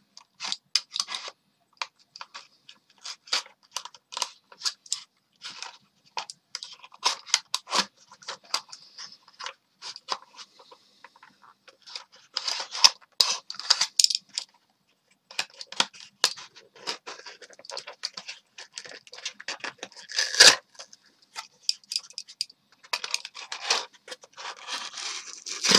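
Packaging being picked at and peeled off by hand: irregular scratching, scraping and tearing of cardboard and plastic, with small sharp clicks. It is the clearing away of the pieces that block the screws holding a toy car in its display box. There is a louder knock about twenty seconds in.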